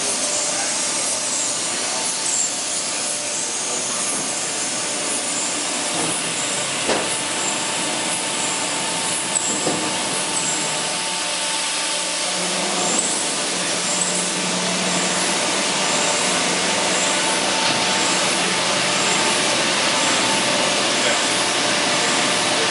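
Steady background noise of a large machine shop: a constant hiss with faint humming tones underneath and a few light clicks, with no machine starting or stopping.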